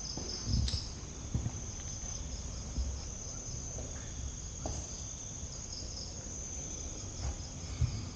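Night insects trilling steadily: a continuous high-pitched drone with a rapidly pulsing chirp just below it. A few soft, low thumps sound in between.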